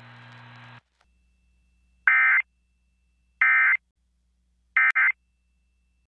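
Emergency Alert System end-of-message data bursts: three short, harsh digital warbling buzzes about a second and a half apart, the coded signal that closes the tornado-warning broadcast. A faint hum and hiss from the broadcast cuts off just under a second in, before the first burst.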